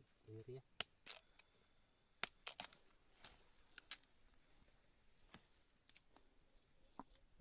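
Steady high-pitched chorus of crickets, with scattered sharp knocks and cracks as a bolo knife chops into ripe cacao pods and the pods are broken open by hand, most of them in the first few seconds.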